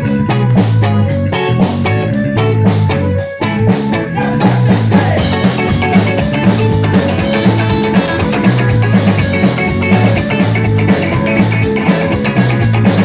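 Live rock band playing, with an electric guitar through stage amplifiers. The music dips briefly about three seconds in, then comes back fuller.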